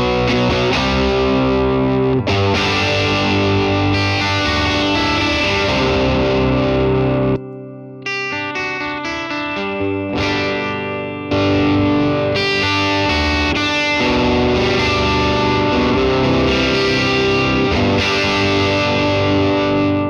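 Electric guitar played through a Standalone x AnalogueTube Love Bomb preamp pedal, with the drive turned down and the output at full, giving a distorted tone. It strums chords, stops briefly about seven seconds in, picks single notes, then strums full chords again from about eleven seconds.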